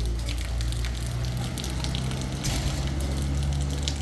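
Food frying in a pan, crackling and sizzling steadily, over a steady low hum.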